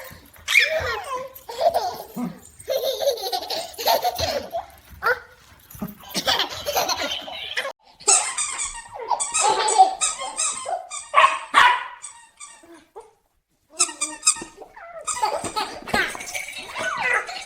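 A baby laughing and giggling in repeated bursts, mixed with a golden retriever puppy's yips and whines; the sounds break off briefly about thirteen seconds in.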